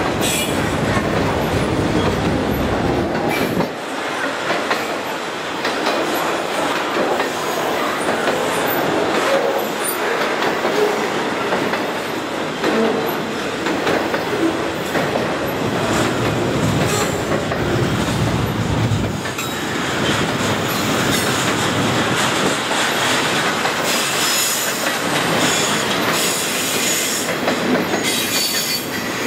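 Freight train cars rolling past close by: steel wheels running along the rails with a steady clatter and some wheel squeal, as autorack cars give way to double-stack container cars.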